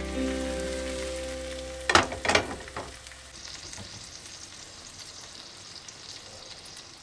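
Food sizzling in a frying pan, a steady hiss, with a couple of sharp knocks about two seconds in as background music fades out.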